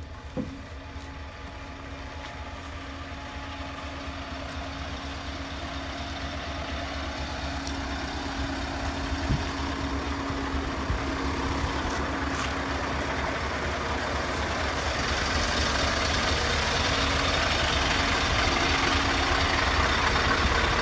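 Scania 770 V8 tractor unit idling steadily, the engine rumble growing gradually louder.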